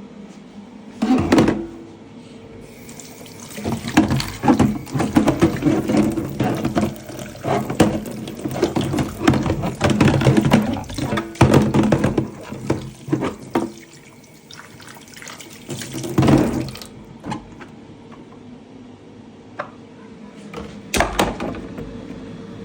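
Water splashing and running from a tap in irregular bursts, as at a sink, over a faint steady hum.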